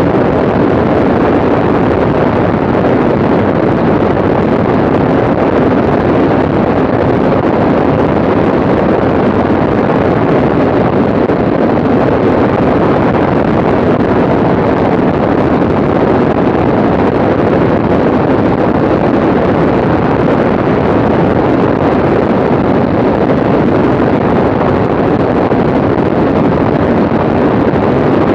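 Steady, loud rush of wind over the microphone mixed with the drone of an aircraft's engine in flight, unchanging throughout.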